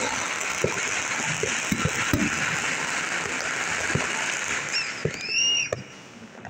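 Aerial fireworks crackling densely like sizzling rain, with scattered pops and bangs. A short high-pitched tone rises and falls about five seconds in, and the crackle stops about six seconds in.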